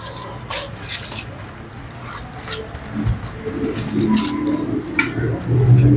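Hands rubbing salt and pepper into a raw beef tomahawk steak in a foil-lined tray. The aluminium foil crinkles and rustles in short irregular crackles as the meat is turned and pressed.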